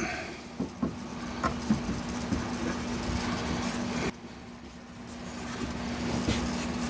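Steady hum of a running machine, with a few light clicks and knocks in the first two seconds as wooden parts are handled for glue-up. The background noise drops suddenly about four seconds in and slowly builds back.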